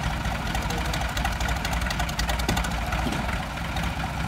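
Diesel tractor engines of a New Holland 3630 and a Sonalika 750 running steadily with a fast, even clatter, as the two tractors pull against each other in a tug-of-war.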